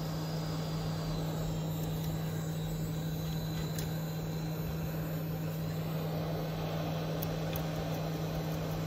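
Hot air rework gun blowing steadily over a phone board's chip, an even airy hiss over a low steady hum, heating the hard black underfill glue so it can be worked off. A few faint light ticks come from the tool working at the chip, around four seconds in and near the end.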